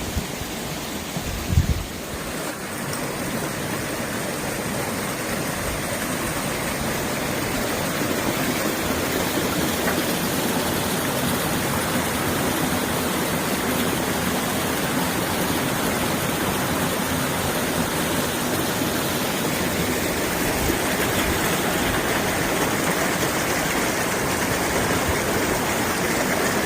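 Steady rush of flowing stream water, growing a little louder over the first several seconds and then holding. A couple of low thumps sound near the start.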